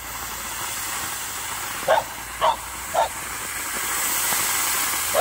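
Smoke bomb hissing steadily as it pours out smoke, growing louder. A dog barks three times in quick succession about two seconds in.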